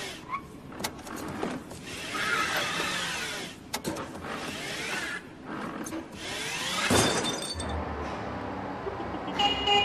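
Small electric utility cart's motor whining up and falling away again and again as it shunts forward and back, with sharp knocks between the runs. Near the end a lower steady hum takes over.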